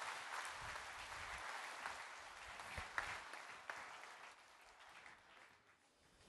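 Audience applauding in a hall, fading away over several seconds.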